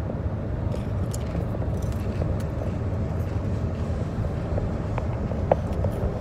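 Steady low rumble of road and engine noise inside a moving car's cabin, with a few faint crunches from a ridged potato chip being chewed.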